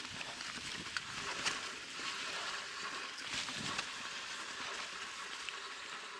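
Mountain bike rolling along a dirt trail: continuous tyre noise with irregular clicks and knocks from the bike over the ground.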